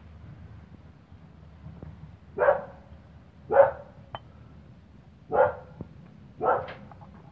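A dog barking four times, single barks spaced about a second or two apart, with a light click between the second and third.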